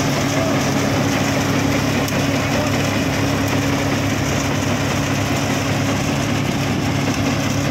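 Groundnut thresher and its tractor running steadily while threshing peanut plants: a constant low mechanical hum under a dense, even rush of noise from the working machine.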